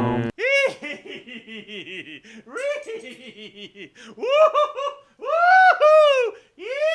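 A person laughing: quick runs of short 'ha' syllables, then longer drawn-out laughs from about four seconds in. It follows an abrupt cut from music.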